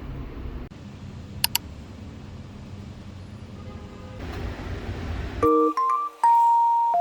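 A low steady rumble, then two quick high beeps about a second and a half in. About five and a half seconds in, an electronic chime melody of clear single notes starts.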